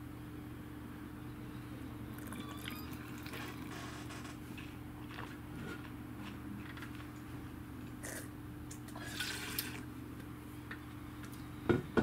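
Red wine being sipped and slurped at a tasting, air drawn through the wine in the mouth in short, wet, hissing bursts, over a steady low room hum. A single sharp knock near the end.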